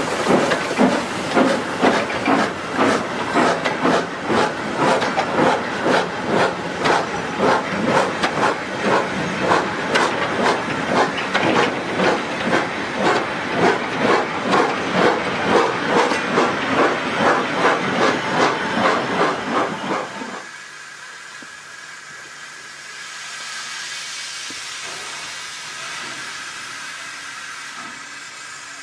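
Austerity 0-6-0ST saddle tank locomotive working hard up a gradient, its exhaust barking in a fast, even beat of about two to three chuffs a second, echoing off the colliery buildings. About two-thirds of the way through the sound cuts to the engine heard from further off: a quieter, steady steam hiss.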